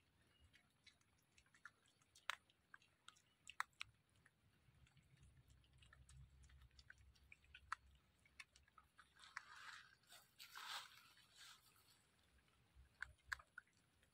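Wild boar piglet chewing green leaves: faint, scattered crunches and clicks, with a denser stretch of munching and rustling about nine to eleven seconds in.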